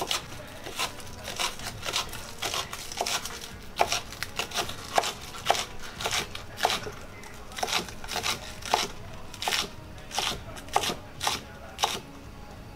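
Chef's knife chopping green onions on a cutting board: steady, even knife strikes through the stalks onto the board, about two or three a second.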